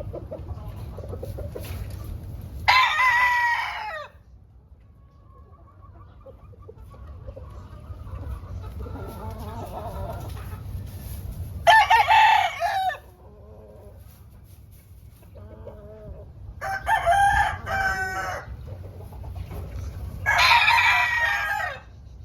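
Gamecocks crowing, four loud crows of about a second and a half each, several seconds apart, with softer clucking between.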